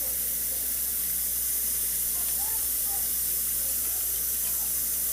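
Tap water running steadily into a glass: an even hiss with no breaks.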